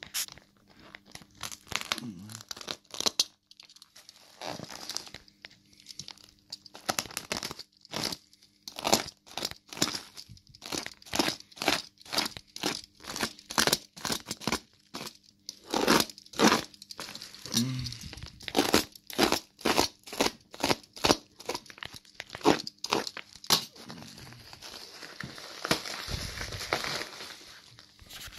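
Clear plastic film and red bubble wrap being torn open and crinkled by hand: a dense, irregular run of sharp crackles and rustles.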